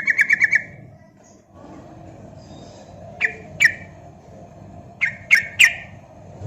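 Yellow-vented bulbul (trucukan) calling. It opens with a fast rattling trill, then gives sharp, short chirps: two a little after three seconds and three more around five seconds, over a low steady background hum.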